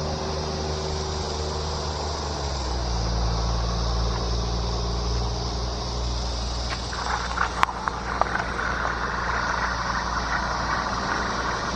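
Steady low hum of an idling motor vehicle engine, with a few sharp clicks about seven to eight seconds in.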